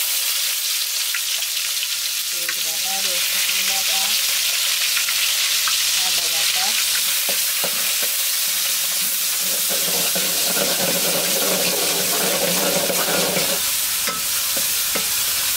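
Onion, garlic and ginger paste frying in hot oil in an aluminium pot, sizzling steadily. A metal spatula stirs it, scraping and clicking against the pot, with the scraping heavier for a few seconds near the end.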